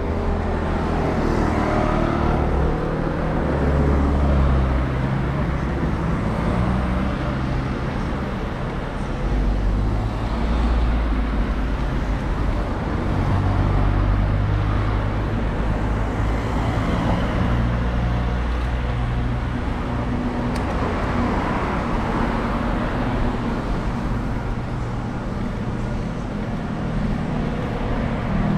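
Steady low rumble of road and traffic noise heard from a moving road bicycle, swelling every few seconds as cars pass close by in the opposite lane.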